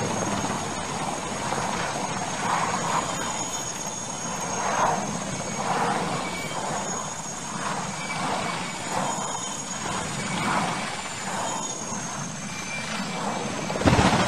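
Military transport helicopter's rotors and turbine engines running loudly, swelling and fading as it lifts off and manoeuvres low. Near the end comes a sudden heavy crash as it strikes the ground and breaks apart.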